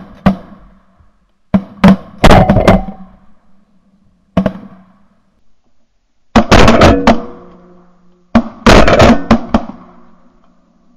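Shotgun blasts fired at geese, in several clusters of quick shots, each with a short ring-out.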